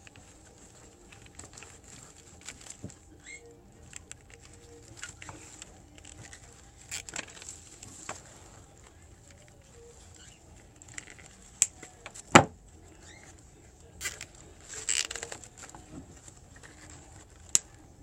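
Handling of a molded-pulp cup carrier and plastic zip ties: scattered light clicks, taps and rustles, with a sharp knock about twelve seconds in.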